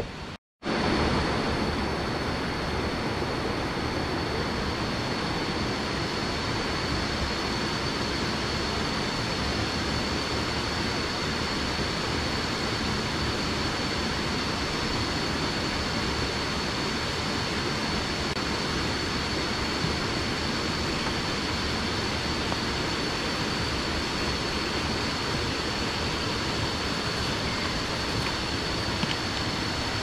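Jungle ambience: an even rushing noise with a constant high-pitched whine over it, unchanging throughout.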